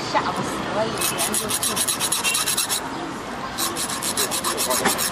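Street cobbler's knife being sharpened, metal drawn quickly back and forth along a metal bar. There are two runs of rapid rasping strokes, about six or seven a second, with a short pause between them.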